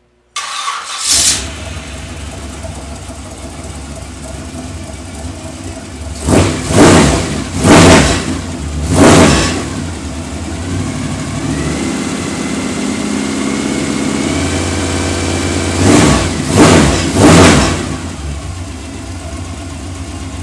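Shop test engine exhausting through an AERO Turbine AT2525XL muffler, one of the quietest in the lineup with a resonator built in. It starts with a quick blip about half a second in and settles to an idle. It is revved sharply three times, held at higher revs for a few seconds, revved three more times, then drops back to idle.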